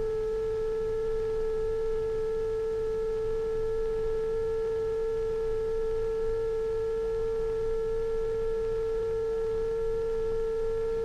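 Electronic sine-wave tone held steady just under 500 Hz, with fainter steady tones higher up. It is the film soundtrack's sine-wave glissando, which climbs very slowly over the film's length.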